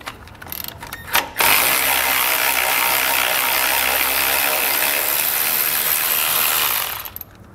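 Cordless electric ratchet with a 10 mm socket backing out a bolt. A few light clicks come first, then the motor runs steadily for about five and a half seconds and stops shortly before the end.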